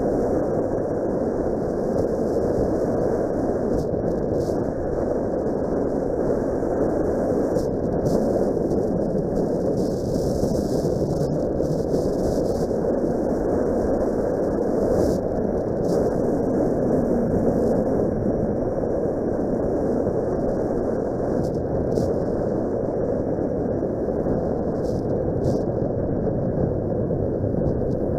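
Steady, muffled riding noise from a Suzuki Grasstracker Big Boy motorcycle under way, a dull rush of wind and the bike's single-cylinder engine heard through a dash cam's microphone.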